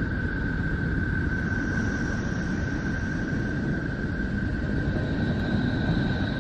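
Space-ambient 'planet sound' drone: a steady low rumble under a constant high whistling tone, with fainter, higher steady tones joining about two and five seconds in.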